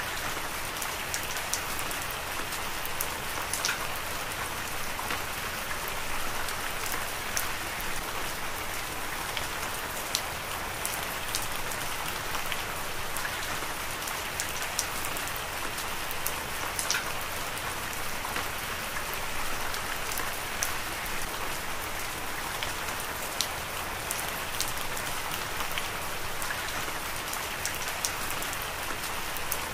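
Heavy rain falling steadily: a dense, even hiss with scattered sharp drop hits.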